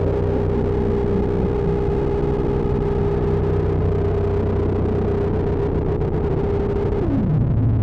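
Electronic synthesizer drone: several steady, deep held tones layered together, with one tone sliding down in pitch near the end.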